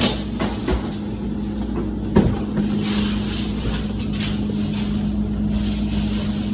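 Steady low hum with scattered knocks and rustles of grocery packages being handled and put away, one sharper knock about two seconds in.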